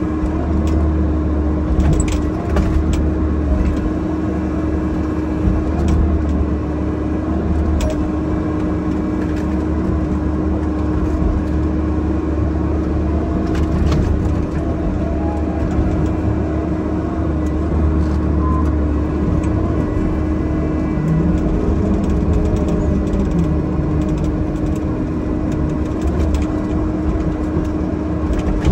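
Bobcat E50 mini excavator's diesel engine running steadily under hydraulic load as the boom and arm work, heard from inside the closed cab. A few short knocks and clicks come through now and then.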